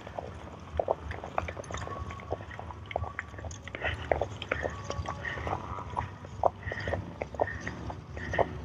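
A measuring wheel rolled along asphalt by a person walking: a run of irregular clicks and taps, with short brief squeaks recurring about once a second from partway through.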